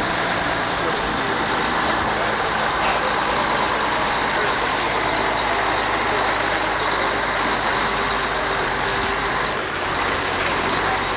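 Diesel engine of a Mack tractor-trailer running steadily, under a steady hiss.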